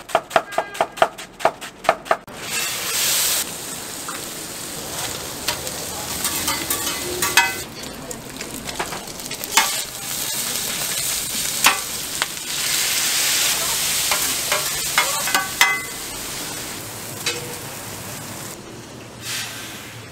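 Pork intestines (gopchang) and cabbage sizzling as they are stir-fried on a flat iron griddle, with a metal spatula and tongs scraping and clanking against the plate. It opens with rapid taps, about five a second, for the first two seconds.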